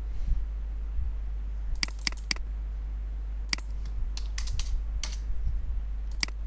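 Scattered clicks of a computer keyboard and mouse, single and in small quick groups, over a steady low hum.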